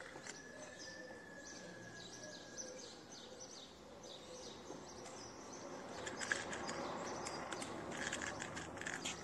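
Outdoor background noise with small birds chirping throughout, growing louder and busier in the last few seconds.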